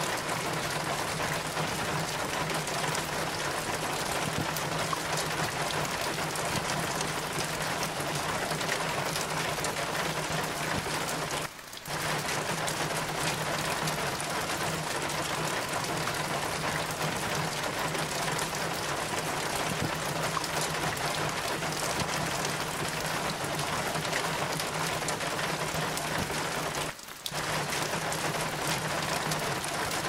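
Steady, dense rain pattering on hard surfaces, with water running off the roof down a metal rain chain. The sound drops out briefly twice, about twelve seconds in and near the end.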